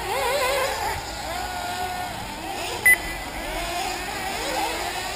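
Several 1/8-scale nitro RC buggies' small two-stroke glow engines whining, their pitch rising and falling as they rev through the track. A short, loud beep about three seconds in.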